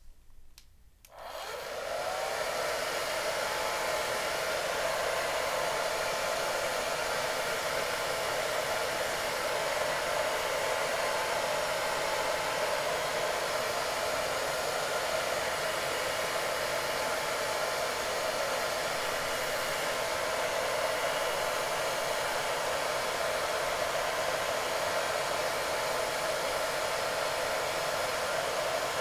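Wavytalk hair dryer switched on about a second in, its motor spinning up with a brief rising whine, then running steadily with a rush of blown air and a constant hum.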